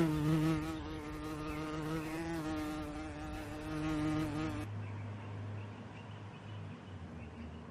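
A flying insect buzzing close by, a steady drone that wavers a little in pitch. About four and a half seconds in it gives way to a lower, fainter hum.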